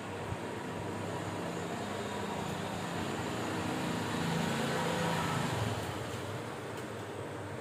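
Background road-traffic noise, a steady rumble that swells as a vehicle passes about four to five seconds in and then eases off.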